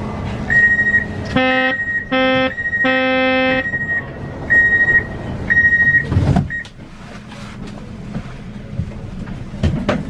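Škoda Varsovia metro train's door-closing signal: repeated short high beeps, plus three short low buzzer tones of the same pitch. About six seconds in the doors shut with a thump. Near the end a rising motor whine begins as the train starts off.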